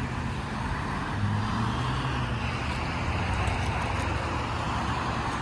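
Steady road-vehicle noise: a low hum under an even rushing haze.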